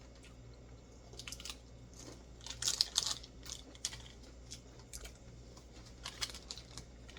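Irregular crunching and crackling from eating a multi-grain crispy roll snack and handling its plastic wrapper, in short clusters, the busiest about three seconds in.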